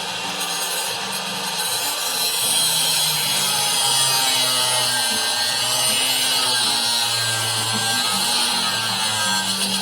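Background music with a bass line stepping through notes under a dense, full sound.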